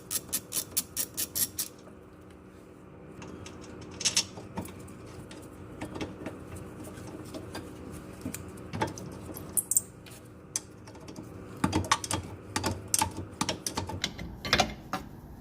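Ratchet wrench clicking as it backs out the 17 mm caliper mount bolts of a rear disc brake. A quick even run of clicks, about four a second, at the start, then scattered clicks and knocks, and another run of clicks near the end.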